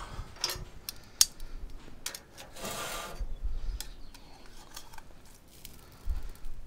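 Metal tongs clicking and scraping against the smoker's steel grates and the meat tray as pieces of pork are picked up and laid on the grates: scattered sharp clicks and knocks, with a short rushing noise about three seconds in and a low thud near the end.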